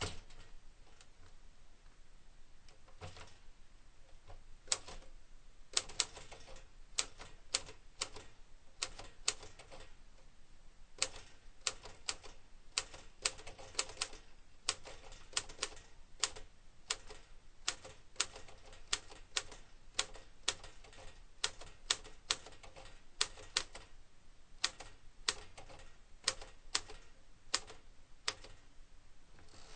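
Royal HHE manual typewriter being typed slowly, one sharp keystroke clack at a time, about one or two a second in uneven runs. It is a trial typing of the freshly cleaned machine, not at full speed.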